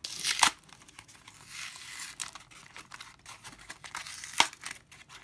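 Mascara packaging being torn and pulled open by hand, crinkling and crackling, with two sharper cracks, about half a second in and about four and a half seconds in.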